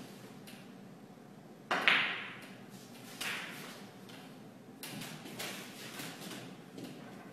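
Snooker balls clacking: one sharp, loud knock about two seconds in as the cue ball is struck into the pack of reds, followed by a smaller knock and a few faint clicks of balls touching.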